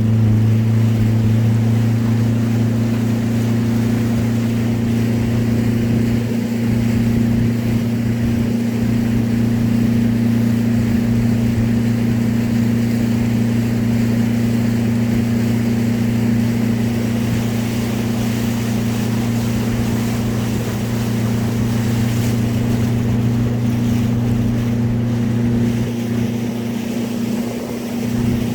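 Speedboat engine running at a steady pitch, a constant drone over a rushing hiss of wind and water.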